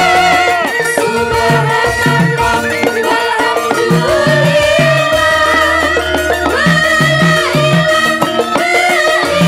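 Javanese gamelan music played through the stage sound system, with female sinden singers' melodic vocal line over a running pattern of low drum strokes. A deep, long-held low tone comes in about halfway through.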